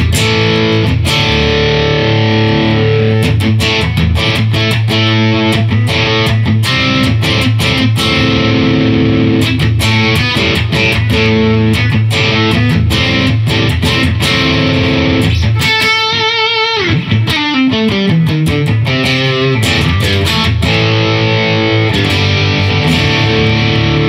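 Electric guitar with Artec humbucker-sized P90 single-coil pickups (Alnico V pole pieces), played through a heavy overdrive: distorted riffs and chords, with a long falling slide in pitch about two-thirds of the way through.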